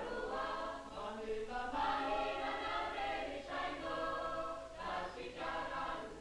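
A choir singing, in phrases with short breaks between them.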